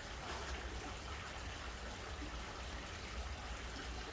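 Steady background hiss over a low hum, with no distinct handling sounds standing out.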